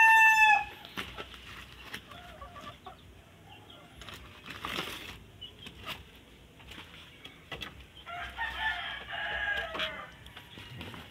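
Rooster crowing: the loud, falling tail of a crow in the first half-second, then low rustling, and about eight seconds in a second, fainter drawn-out chicken call.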